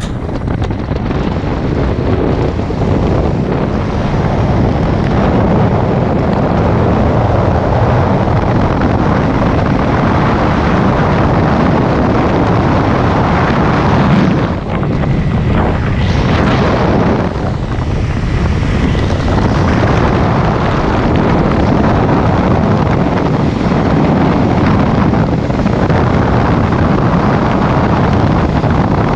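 Steady, loud wind rush buffeting the microphone of a rider speeding down a zipline, with a short lull about halfway through.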